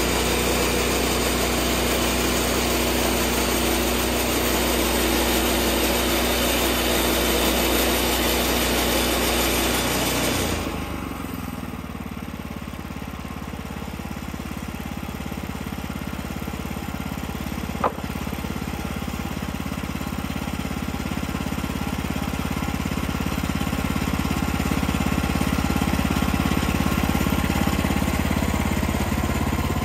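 Woodland Mills HM-126 bandsaw sawmill's gasoline engine running hard as the blade cuts through a log, then dropping suddenly to a lower, steadier run about ten seconds in as the cut ends. A single sharp click about eighteen seconds in.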